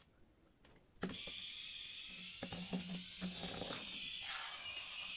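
A toy airplane's sound starts abruptly about a second in: a steady high whirr with rapid rattling clicks.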